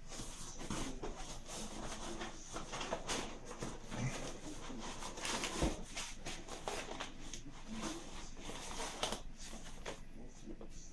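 Packaging being handled during an unboxing: irregular rustling, crinkling and light knocks as items are lifted out of the box.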